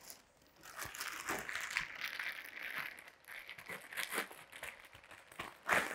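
Packaging and plastic rustling and crinkling while things are rummaged through and handled, with scattered clicks and one sharper knock near the end.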